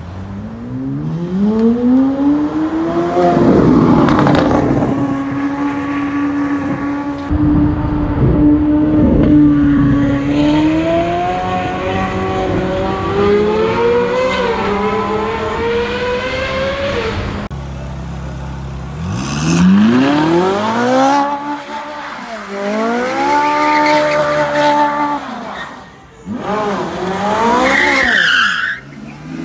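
Ferrari sports car engines revving hard and accelerating in several passes, each rising and falling in pitch, with one held at a steady high rev for several seconds. Near the end, tyres squeal as a red Ferrari does a burnout.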